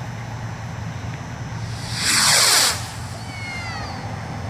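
An AFW Thunder and Lightning sky rocket launching: a loud whooshing hiss about two seconds in that lasts about a second and falls in pitch as it climbs away, followed by a few faint falling tones.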